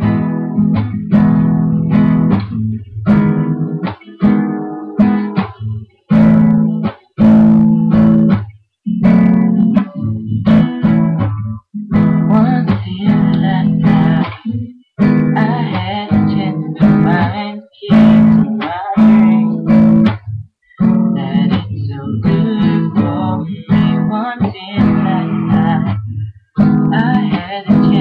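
Acoustic guitar strummed in a rhythmic chord pattern, phrases broken by short stops every second or two.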